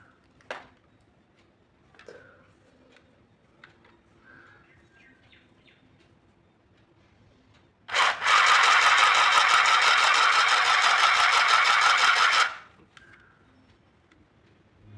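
Handy Stitch CS101B handheld sewing machine running and stitching, a loud fast-pulsing buzz that starts about halfway through and stops about four and a half seconds later. A few faint clicks come before it.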